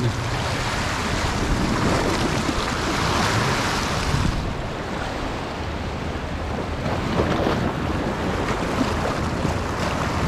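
Wind buffeting the microphone over the rush of the sea, a steady noisy haze with no distinct events. About four seconds in, the highest hiss drops back.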